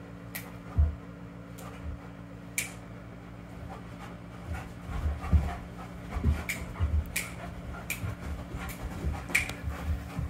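A dog panting, with scattered sharp clicks and soft low thumps, more of them in the second half.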